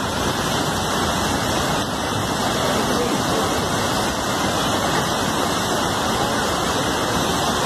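Swollen river in flash flood, its churning brown floodwater rushing with a steady, dense noise that does not let up.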